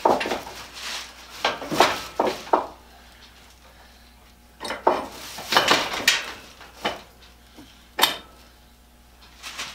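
Metal clamp being set in place on a workbench top: scattered metallic clinks, knocks and scrapes, with two sharper knocks about two seconds in and near eight seconds.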